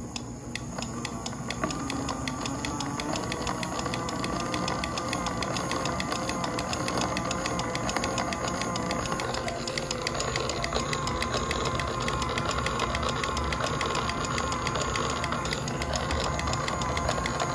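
Small internally geared DC motor driving a 3D-printed PLA gearbox, running with a steady, slightly wavering whine over a dense rapid clatter of gear teeth. It grows louder over the first couple of seconds as the supply voltage is turned up, then runs evenly at full speed.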